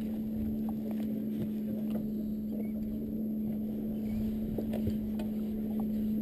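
Boat engine running steadily, a constant low drone, with a few faint clicks over it.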